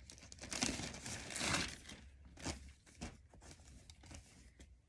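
Packaging of an individually wrapped T-shirt crinkling and tearing as it is pulled open and the shirt is taken out, loudest about a second and a half in, then fainter rustles and ticks.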